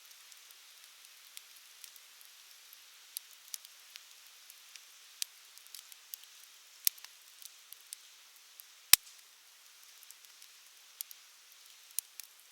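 Wood fire crackling: a soft steady hiss with scattered sharp pops and snaps, one much louder snap about nine seconds in.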